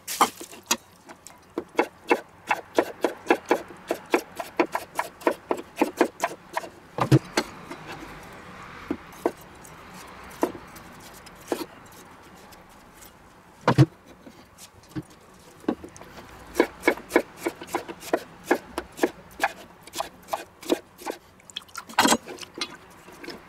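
Kitchen knife cutting a red bell pepper into strips on a wooden chopping board: quick, even knocks of the blade on the wood, about three or four a second. The knocks pause for several seconds midway, with a single louder knock, then start again.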